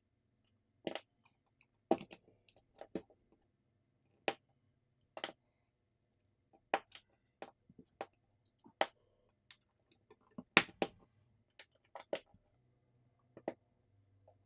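Irregular sharp clicks and taps, about fifteen in all, as parts are fitted back into a Samsung Galaxy S24 FE's frame: battery, flex cable and wireless-charging coil panel set down and pressed into place. The loudest comes about ten and a half seconds in.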